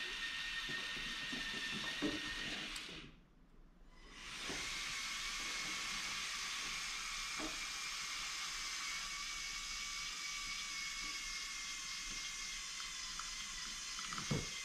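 Lego Technic Liebherr 9800 excavator's Control+ electric motors whirring steadily with a few light whining tones. The whirring cuts out briefly about three seconds in. A few light knocks come as the bucket digs among ping pong balls, the sharpest near the end.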